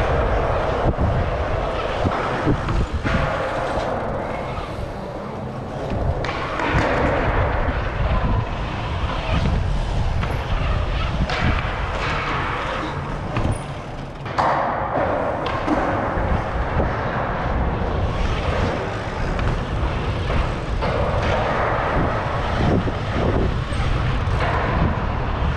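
Dirt-jump bike tyres rolling over smooth concrete with wind rushing over the action camera's microphone, the rush rising and falling as the bike speeds up and slows through the bowls, with a few short thuds.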